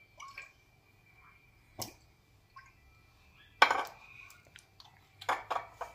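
A few sharp clinks and knocks of kitchen handling: a metal spoon, ceramic bowl and bottle on a stone countertop, the loudest about three and a half seconds in and a quick cluster near the end.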